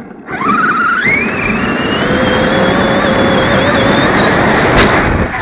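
1600kv brushless motor and drivetrain of an 8S-powered Traxxas X-Maxx RC monster truck whining under throttle. The pitch rises steeply in the first second, then climbs slowly and holds high, over tyre and wind noise on the onboard camera. A sharp knock comes near the end.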